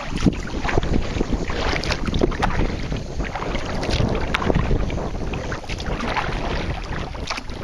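Wind buffeting the microphone in a steady low rumble, with irregular splashing and slapping of choppy water around a kayak.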